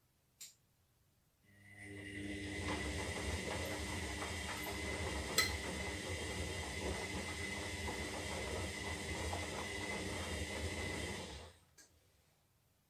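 Zanussi Lindo 300 washing machine's motor turning the drum in a wash phase of the synthetic cycle: a steady run with a constant whine over the tumbling load for about ten seconds, then it stops abruptly. There is a faint click shortly before it starts and another just after it stops.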